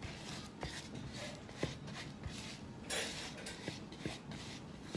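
Spatula scraping and smearing butter and granulated sugar around a glass mixing bowl, creaming them together, with a few light knocks of the spatula against the glass.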